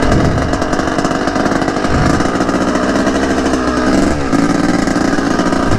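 Yamaha YZ250 two-stroke dirt bike engine running under throttle while riding, the engine note dropping and picking back up about two seconds in and again about four seconds in as the throttle is eased off and reopened.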